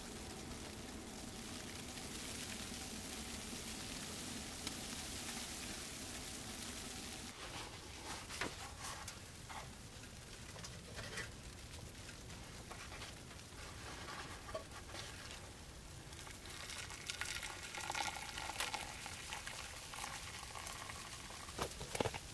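A small steel pot of coffee simmering with a steady sizzle on the top of a wood stove; it cuts off about seven seconds in. Then come scattered light knocks and clinks and an irregular patter as the coffee is strained through a paper towel into an enamel mug.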